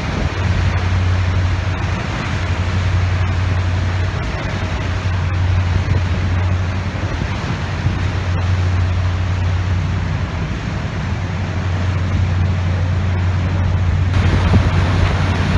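Steady low hum of a harbor cruise boat's engine under a constant rush of wind on the microphone and water. The wind noise grows brighter near the end.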